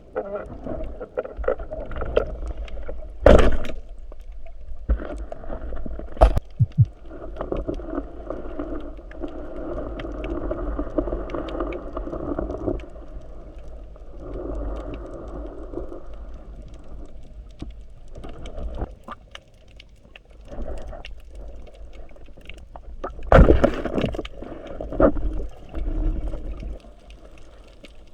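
Water sloshing and gurgling over a steady low rumble, with a few sharp knocks.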